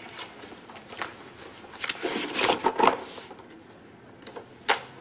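Folders, papers and small objects being handled and packed into a file box: scattered light knocks and clicks, a longer stretch of paper rustling about two to three seconds in, and one sharp knock near the end as something is set down in the box.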